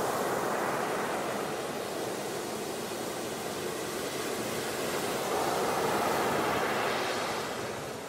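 Ocean surf: waves breaking and washing in, swelling about five seconds in and easing off near the end.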